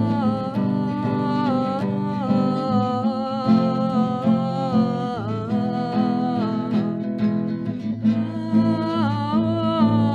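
Acoustic guitar accompaniment in an instrumental break between sung verses, with a wordless melody line held and stepping from note to note over it.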